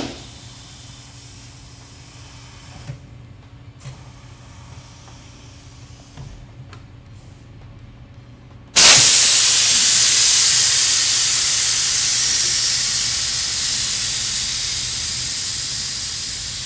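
Compressed air hissing into an ATV tire on a tire-changing machine to set the bead on the rim. It starts suddenly about nine seconds in, loud, and slowly eases off, after a few faint handling clicks.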